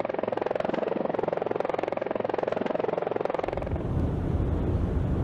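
Helicopter rotor chopping in a rapid, even beat. About three and a half seconds in, it gives way to a deep, steady rumble.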